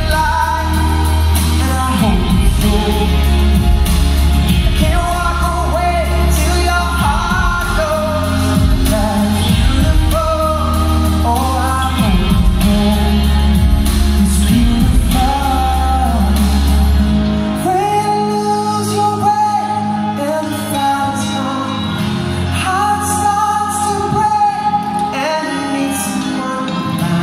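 Male pop singer singing live with his band through a concert sound system in a large hall. A heavy bass line runs under the voice until about two-thirds of the way through, when it drops away and leaves a lighter backing.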